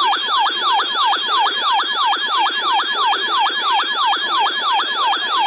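Emergency alert attention tone: a loud, rapid, siren-like yelping tone that dips and recovers in pitch about four to five times a second, with a bright overtone. It cuts off suddenly at the end, ahead of the alert bulletin.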